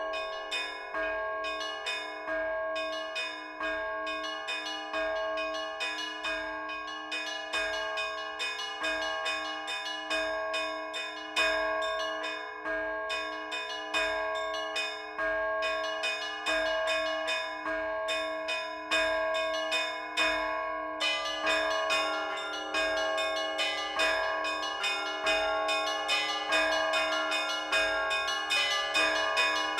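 Orthodox church bells rung by hand from a bell tower in a rhythmic peal. Struck bells ring on and overlap, with about two strikes a second. About two-thirds of the way through, the higher bells join in more densely and the ringing grows fuller.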